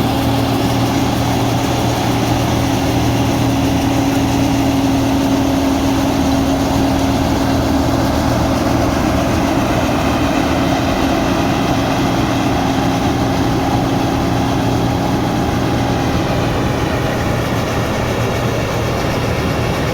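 Combine harvester running steadily, its engine and machinery droning with a few held tones throughout.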